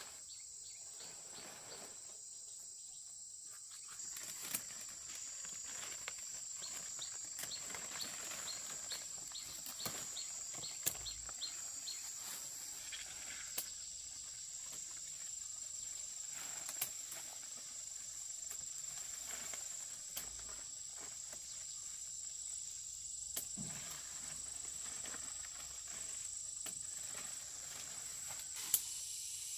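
Insects droning in one steady, high, unbroken tone, with a run of fast faint ticks in the first half and a few scattered sharp clicks.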